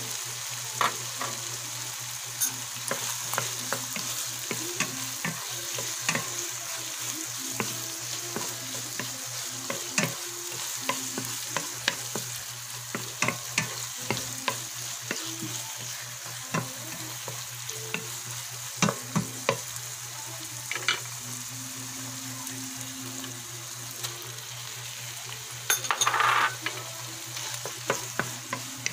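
Minced meat and sliced hotdogs frying in a pan with a steady sizzle, while a wooden spatula stirs, scraping and knocking against the pan. Near the end there is a louder rush of sizzle lasting about a second, and a steady low hum runs underneath.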